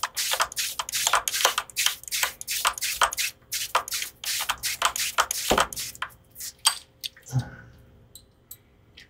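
A string winder being cranked on a Gibson Les Paul tuning peg, making a quick, even series of rasps, roughly three or four a second, as the string is wound on. It stops about seven seconds in, followed by one soft knock.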